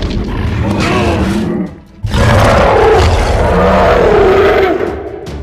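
Monster roar sound effect for the cartoon Venom: a growling roar for the first couple of seconds, then a longer, louder roar from about two seconds in that fades near the end.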